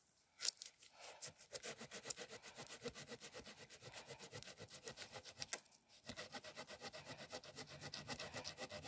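Silky Pocketboy folding hand saw cutting through a wooden pole, faint and rhythmic at about four or five strokes a second, with a brief pause a little past halfway.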